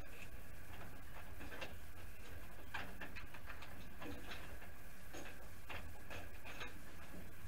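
Irregular light clicks and rustles of car wiring and connectors being handled by hand behind the dashboard, over a steady low hum.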